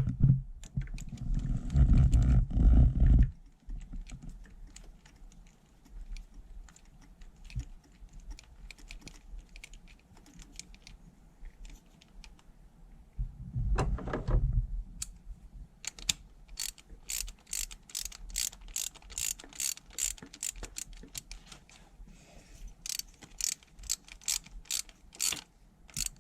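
Ratchet wrench clicking as it drives home the 10 mm bolt holding a new VVT solenoid on the engine, a long even run of sharp clicks about two a second that quickens near the end. Dull knocks of the tool and part being handled come before it.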